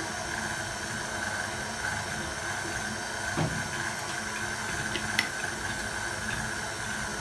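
KitchenAid tilt-head stand mixer running steadily, beating cake batter, with an even whirring hum. A few light clicks from small glass jars set down on the steel counter, about halfway through.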